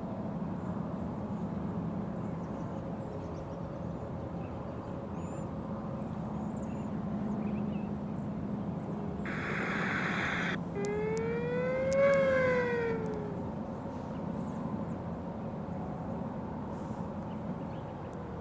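Outdoor warning siren wailing: one rise and fall in pitch about 11 seconds in, over a steady low hum, with a short burst of hiss just before it and another faint wail near the end.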